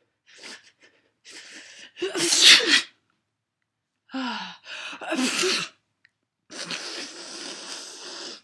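A person sneezing twice without covering the mouth, each sneeze led by a gasping in-breath. A long breathy exhale follows near the end.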